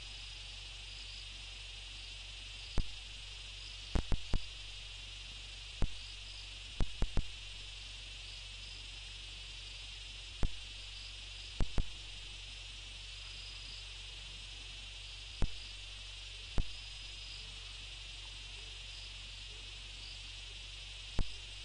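A night insect chorus: crickets trilling in a steady, shrill band over a low steady hum. About fourteen sharp clicks are scattered through it at uneven gaps, some coming in quick twos and threes.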